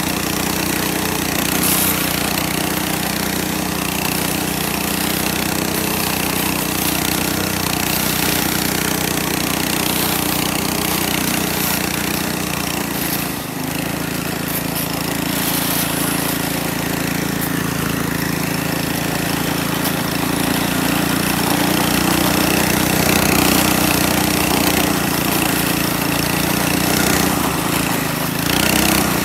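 A homemade snowdog's 212cc, 7.5 hp single-cylinder engine running steadily under load as the track sled pulls through deep snow, with a brief dip in revs about halfway through.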